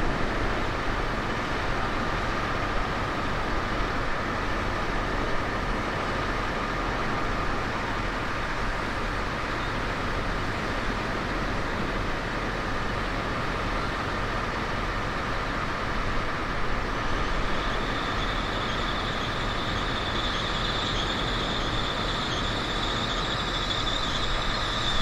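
A train running on the line: steady rolling noise with a whine. A higher-pitched squeal joins in about two-thirds of the way through and holds on.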